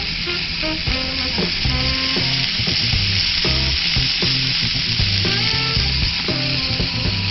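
Food sizzling and frying on a small grill plate, a steady hiss, with background music playing over it.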